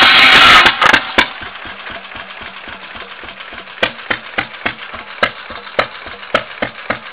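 Background music cuts off under a second in, leaving an antique Stover 4-horsepower throttle-governed gas engine running with a rapid, even exhaust beat and a few louder pops scattered through it.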